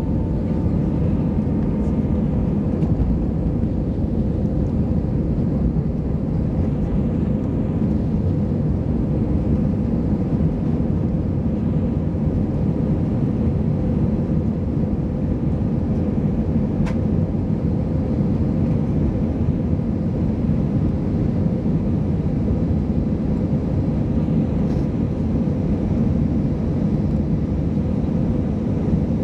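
Steady cabin noise of an Airbus A319-100 in its climb-out: the jet engines and the rush of air around the fuselage, heard from inside the cabin. It is an even, deep rumble with a faint steady hum above it.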